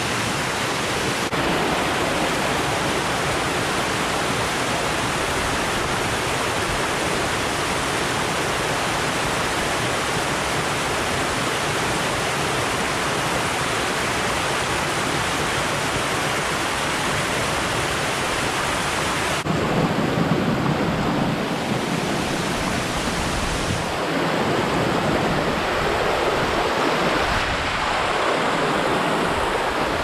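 Rushing water of a mountain stream running over rocks and small falls, a steady loud hiss that shifts abruptly in tone about two-thirds of the way through and again shortly after.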